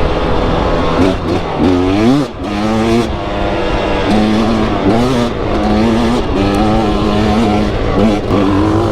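Dirt bike engine revving on a trail ride. Its pitch swoops up and down with the throttle and gear changes for the first few seconds, then holds a steadier, slightly wavering speed.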